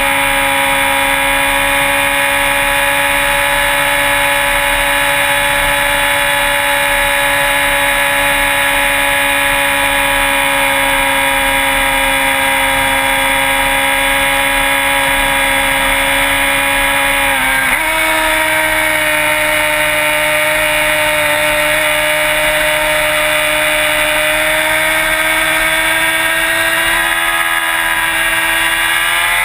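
Sport bike engine running at steady high revs while riding. Its pitch jumps up about two-thirds of the way through, then climbs slowly.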